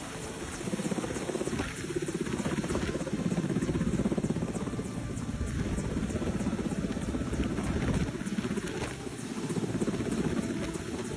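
Helicopter running close by, its rotor making a rapid, even beating.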